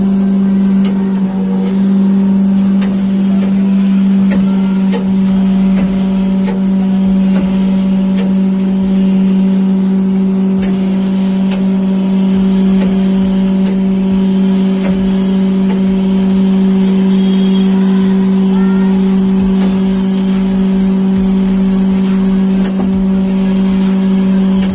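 CNC cylinder-honing machine running, its honing head working inside a cylinder bore: a loud, steady motor hum with a few constant higher tones, and a high hiss that comes and goes every few seconds.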